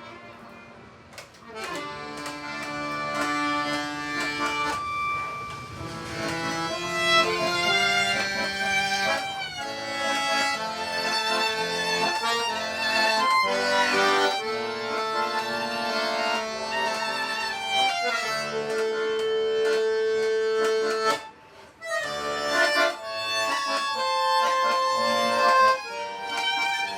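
Acoustic instrumental folk music played live: long held notes and chords with a melody moving over them. It breaks off briefly about two-thirds of the way through, then resumes.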